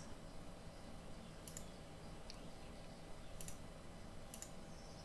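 Four faint, isolated clicks from a computer keyboard and mouse, over a low steady room hum.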